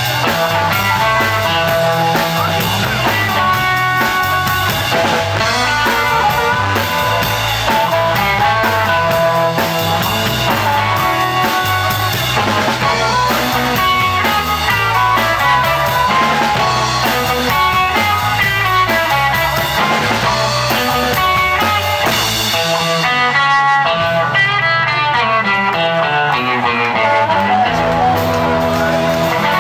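Live electric blues band playing: a harmonica played into cupped hands carries the lead over electric guitar, a repeating bass line and drums.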